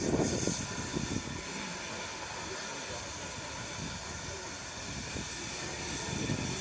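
Steam locomotive letting off a steady hiss of steam, with an uneven low rumble underneath.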